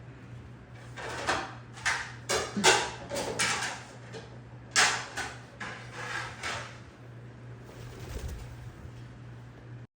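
Indian ringneck parrot squawking: a run of harsh calls over about six seconds, loudest a little under three seconds in and again near five seconds, over a low steady hum.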